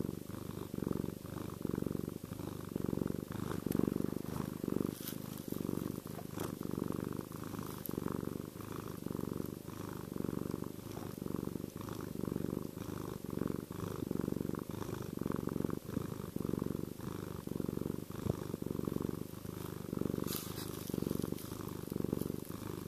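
Domestic cat purring steadily, the low rumble swelling and easing in a regular rhythm about once a second.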